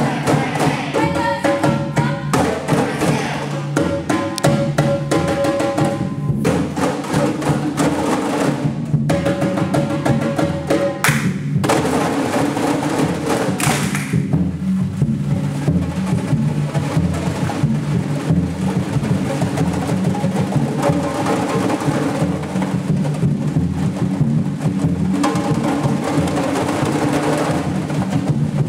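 Samba drumming: a group of drums and percussion playing a steady, driving rhythm together.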